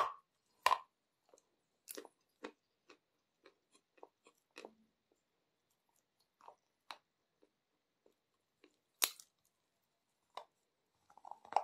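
Close-up bites and chewing of a block of Aktobe edible chalk: sharp crunches as pieces snap off, loudest twice in the first second and again about nine seconds in, with quieter chewing crunches between.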